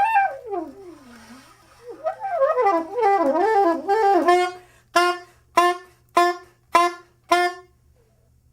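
Improvised saxophone playing: quick swooping slides up and down in pitch, then five short, separate notes repeated on one pitch, about one every 0.6 seconds, before it stops.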